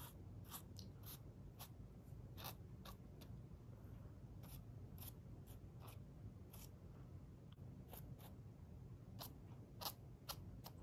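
Faint, quick scratching of a stiff paintbrush dry-brushing acrylic paint over a carved pink insulation foam wall, in many short, irregular strokes.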